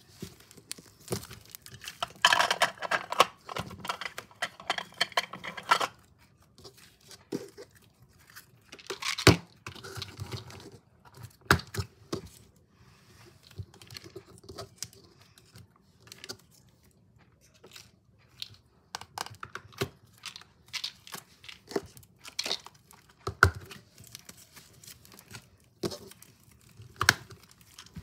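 Clear plastic packaging being handled, crinkled and torn open, with scattered sharp clicks and taps. The densest crinkling comes for a few seconds near the start.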